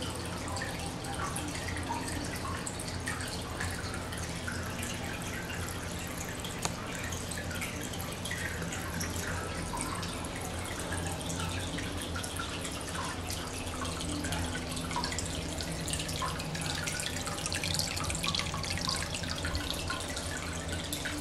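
Aquarium water circulating: steady trickling and bubbling over a low pump hum, with one brief tap about seven seconds in.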